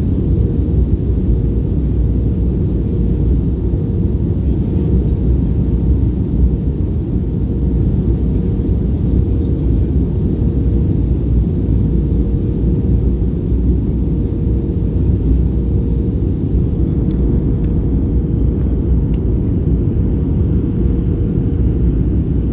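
Steady cabin noise inside an Airbus A320-214 airliner: a constant deep rumble of engines and airflow with a steady hum near 500 Hz, level throughout.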